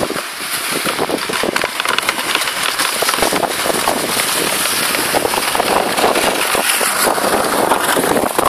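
Sled runners scraping and crackling over hard-packed, icy snow as the sled slides downhill, a continuous rough hiss with dense irregular crunches, with wind rushing over the microphone.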